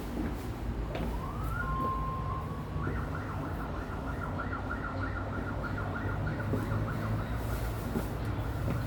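Emergency vehicle siren in city traffic: a tone rises and holds steady for about a second, then switches to a fast warble that repeats about four times a second. A steady low traffic rumble runs underneath.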